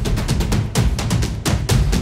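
Background music with fast, steady percussion hits over a heavy bass beat.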